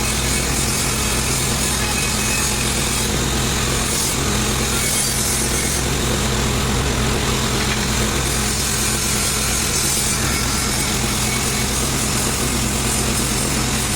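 A motor-driven machine running steadily at constant speed, a continuous mechanical drone with a low hum and no breaks.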